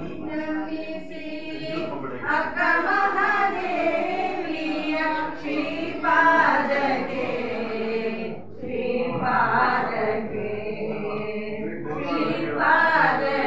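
A group of women singing a Kannada song together in unison, in phrases a few seconds long with short breaks between them.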